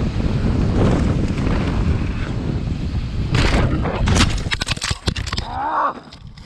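Wind buffeting a helmet-camera microphone and tyres rattling over dry dirt as a mountain bike rides fast down a jump line. About four seconds in comes a series of hard impacts as the rider crashes and hits the ground, followed by a short vocal cry.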